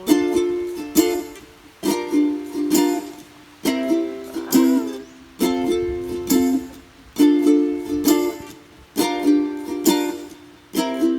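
Background music: a plucked string instrument strumming chords in a repeating pattern, a new phrase roughly every two seconds.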